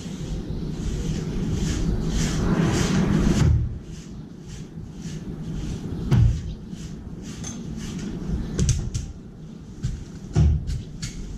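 Sharp knocks and clinks from a crow moving onto a steel feeding tray and pecking its beak into a metal bowl of cat food, loudest about six seconds in and again near the end. Over the first three and a half seconds there is a steady rushing noise.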